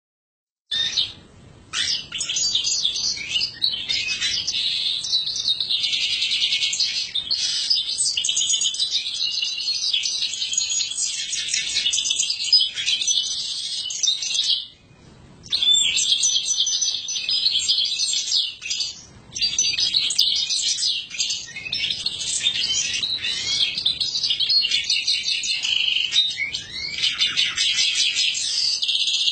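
Domestic canary singing a long, almost unbroken song of rapid high trills. It pauses briefly about a second in, around halfway through, and again a few seconds later.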